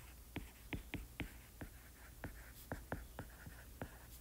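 Stylus tip tapping and sliding on a tablet screen while equations are handwritten: a faint, irregular run of light taps, about three a second.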